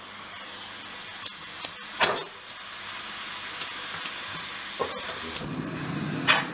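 Vango remote-canister gas stove hissing as gas flows from the burner, with a string of sharp clicks as it is lit. About five seconds in, a lower rushing sound joins the hiss as the flame catches.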